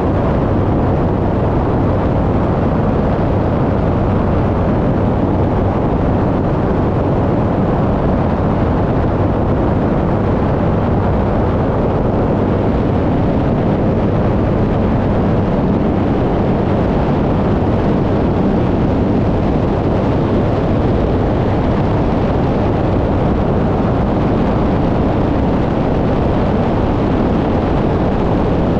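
Light propeller aircraft in flight: engine and propeller running steadily, mixed with a heavy rush of air over the airframe, at an even level throughout.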